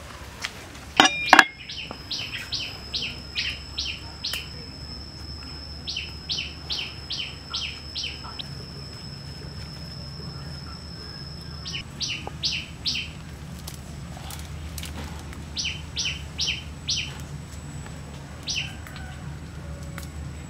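A bird calling in repeated bursts of short, sharp, falling chirps, about two a second, over a steady thin high tone that stops about halfway through. A brief loud sound comes about a second in.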